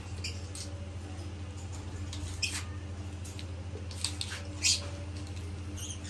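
Lovebirds giving short, high chirps and squeaks every second or so, the sharpest about three quarters of the way through, over a steady low hum.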